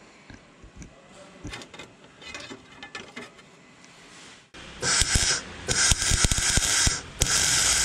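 Light clicks and scrapes as a sheet-steel sill panel is handled and pressed into place. About halfway through, a MIG welder starts crackling in three short runs, welding the new inner sill section in.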